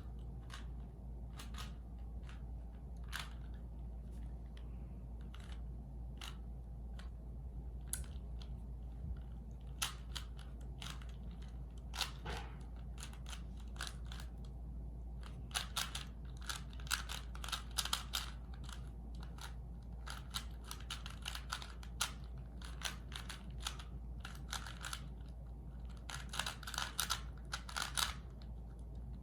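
Plastic Rubik's cube layers being turned by hand: irregular clicks and short rattling runs of quick turns, over a steady low hum.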